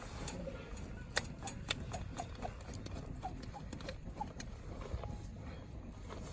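Wood campfire crackling, with irregular sharp pops and snaps several times a second over a low steady rumble.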